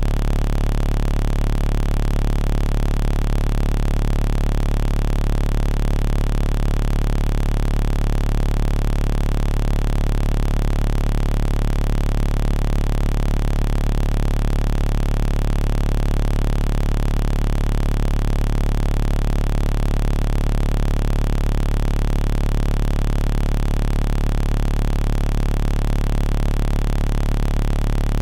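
A loud, steady electronic hum with hiss that never changes: a deep low drone with fainter steady tones above it.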